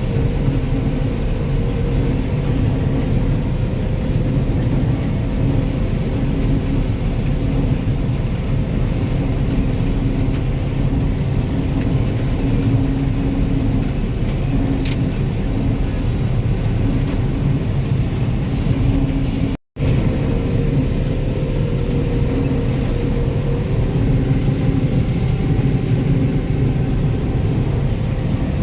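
Combine harvester running steadily while harvesting corn, heard from inside the cab: a constant engine and machinery drone. The sound drops out for an instant about two-thirds of the way through.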